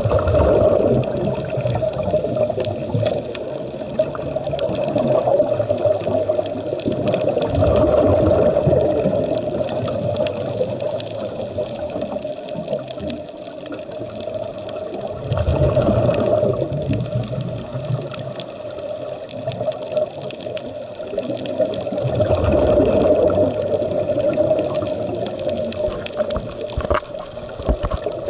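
Scuba diver's breathing through a regulator underwater: exhaled bubbles gurgle out in swells every several seconds over a steady background.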